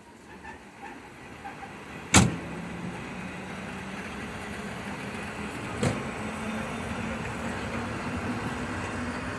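Passenger train pulling out of the station: a loud sharp clank about two seconds in, a smaller one near six seconds, and then steady running noise with a hum that slowly rises in pitch as the train gathers speed.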